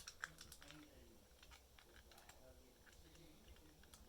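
Faint clicks and taps of plastic LEGO Technic pieces being handled and fitted together, with a couple of sharper clicks in the first half-second.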